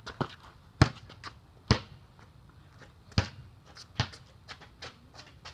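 Basketball bouncing, with four loud bounces at uneven spacing and lighter taps between them.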